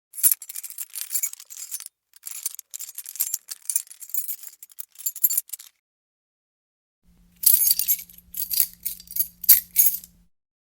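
A bunch of keys jangling as it is shaken, in three stretches of jingling with a silent gap of over a second before the last one. A faint low hum runs under the last stretch.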